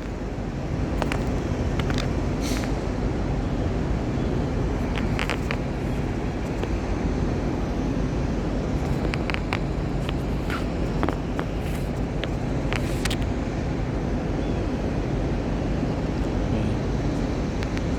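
A vehicle engine idling with a steady low hum, with scattered short clicks and knocks over it.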